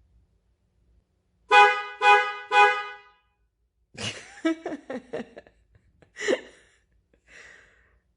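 Jeep Liberty's car horn honking three times in quick succession, on its own with nobody pressing it, a sign of an electrical fault in the horn circuit. A person's voice follows.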